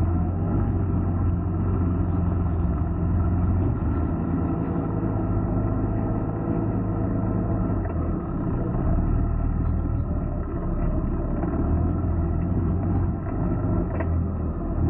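Side-by-side UTV engine running steadily with a deep, even note, heard from inside the vehicle's cab as it drives along a dirt trail.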